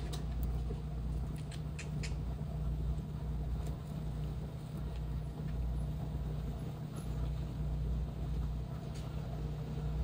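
Biting into and chewing a slice of thin-crust pizza, with a few crisp crunches in the first couple of seconds, over a steady low rumble.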